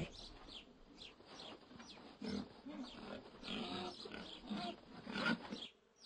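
Pigs grunting: a run of short, irregular grunts, faint at first and more frequent from about two seconds in, stopping just before the end.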